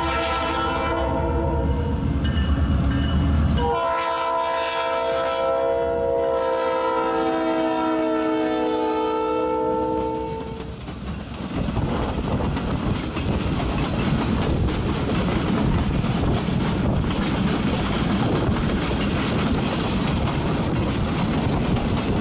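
EMD diesel locomotive's Leslie 3LR air horn blowing one long blast of about ten seconds as the locomotive goes by, its engine rumbling under the first few seconds. Then the passenger cars roll past with steady wheel-on-rail noise and clickety-clack over the joints.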